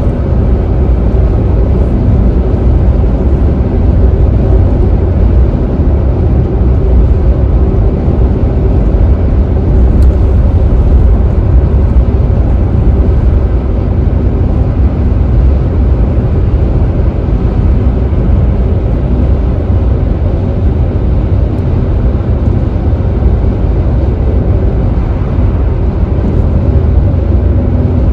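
Steady low road and tyre noise with engine drone, heard inside a car's cabin while it cruises at freeway speed.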